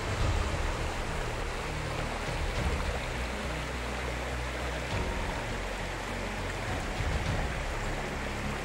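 Shallow rocky stream: water rushing and rippling steadily over stones.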